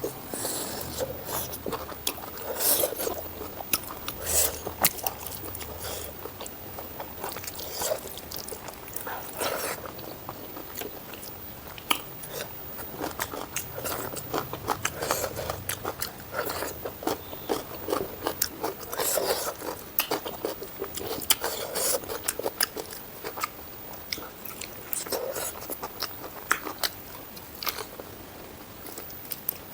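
Close-miked eating: repeated bites, wet chewing and crunching of a meal of mutton curry, rice and raw salad vegetables.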